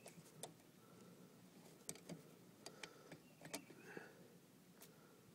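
Faint, irregular metal clicks from a small 110 Conibear body-grip trap being set by hand.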